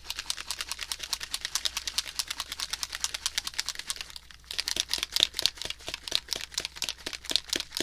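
Rapid, even rattling clicks, about ten a second, from a small bottle of Jacquard Piñata pearl white alcohol ink being shaken, with a short break about four seconds in before the shaking resumes.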